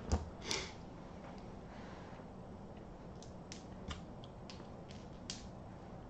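Quiet room tone with about half a dozen faint, short clicks scattered through it, the clearest just after the start.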